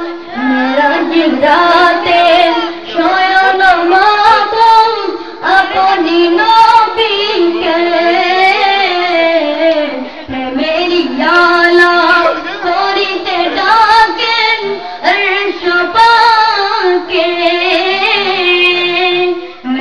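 A high, young-sounding voice singing a Bengali naat, a devotional song in praise of the Prophet, in a winding melody with long held notes.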